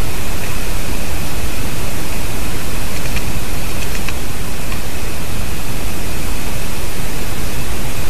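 Loud, steady hiss of noise on an outdoor nest-camera microphone, even in level throughout, with a faint high steady tone and a few faint ticks near the middle.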